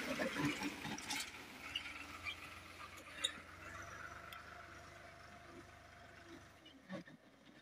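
New Holland farm tractor's diesel engine running faintly and steadily, with a few clicks over it; the engine sound drops away near the end.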